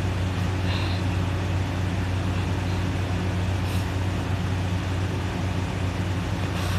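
Steady low mechanical hum that holds an even level throughout, with no rise and fall of breathing, and a few faint brief ticks.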